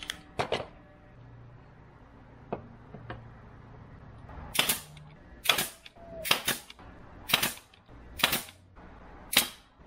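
Cordless nail gun firing six times, about once a second, driving nails through thin wooden strips into a seat frame. A few lighter knocks of wood strips being handled come before the first shot.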